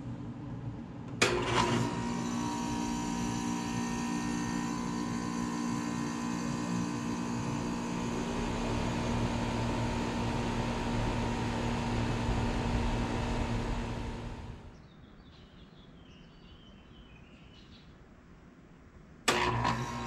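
A Bryant Preferred Series 4-ton central air conditioner's outdoor unit starting with a sharp click about a second in. The compressor and fan then run with a steady hum and several steady tones, and the sound drops away suddenly about fourteen seconds in. Near the end a second click comes as the same unit starts again.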